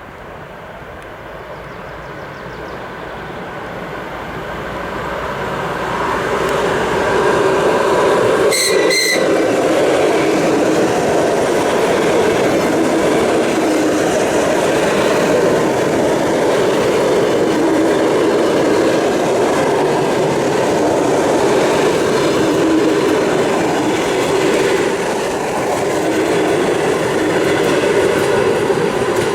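ED4M electric multiple unit approaching and running past on the rails, growing louder over the first eight seconds, then a loud steady sound of wheels and traction equipment with rail-joint clickety-clack. There is a short high-pitched sound about nine seconds in.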